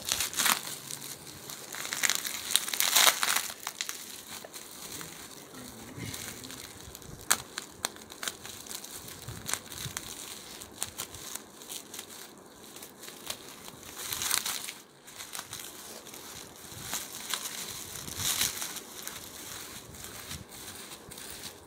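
Plastic bubble wrap crinkling and rustling as hands unwrap and pull it apart, in irregular spells of sharp crackles. The spells are loudest near the start, and a few more come later on.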